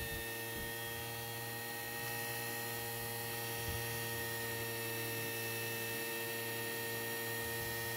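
Steady electrical hum with a thin high whine from a homemade three-phase inverter driving a mains AC motor, its DC bus pushed above 300 volts.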